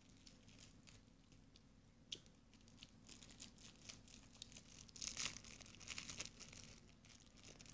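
Faint crinkling and crackling of packaging being handled in the hands, growing busier and loudest about five to six and a half seconds in.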